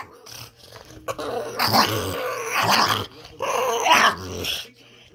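Boston terrier growling and grumbling in gremlin-like noises: two long bouts, the first about a second in and lasting about two seconds, the second shorter, with softer grumbles before them.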